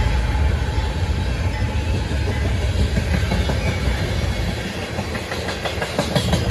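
Freight train's hopper and tank cars rolling past close by, a steady rumble of steel wheels on rail. A low rumble thins after about four seconds, and sharp wheel clacks over the rail joints come through near the end.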